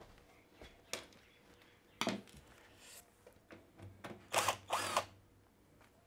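Cordless drill-driver whirring in two short runs about four seconds in, undoing a top-cover screw on a washing machine, after a few light clicks and a sharp knock.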